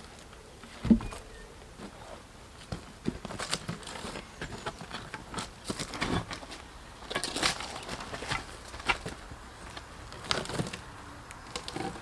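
Heavy cut beech wood being handled: a loud thump about a second in, then scattered irregular knocks, clicks and rustles.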